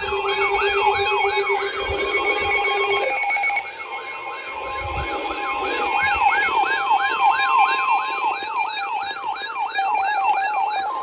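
Several weather-alert alarms going off at once, signalling newly issued severe thunderstorm and flash flood warnings. A siren-like tone sweeps up and down about three times a second, layered with steady tones and a faster, higher warble. A low steady tone drops out about three and a half seconds in, and a higher steady tone joins about four seconds in.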